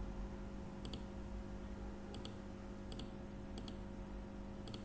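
Computer mouse clicking five times at uneven intervals. Each click is a quick press-and-release pair, heard over a faint steady electrical hum.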